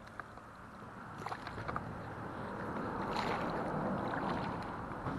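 Road noise from a vehicle passing on the highway overhead, a broad rush that swells over a few seconds and then eases, with a few faint clicks over it.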